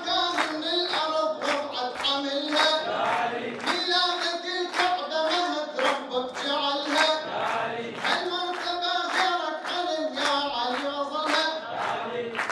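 A man singing an Arabic praise song (lofzang) into a microphone, with hands clapping in time, about two claps a second.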